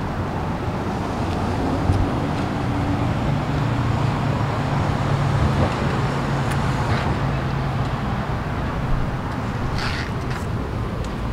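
A motor vehicle's engine running steadily, with road traffic noise around it and a few light clicks near the end.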